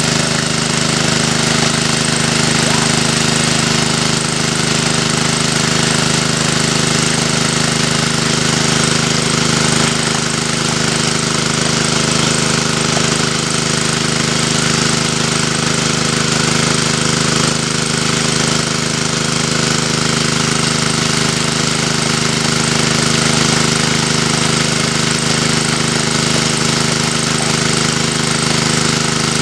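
Water pump's engine running steadily at constant speed, an even mechanical drone that does not change.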